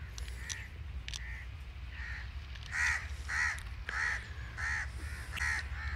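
A crow cawing over and over, short harsh calls about every half second, with a few faint clicks near the start.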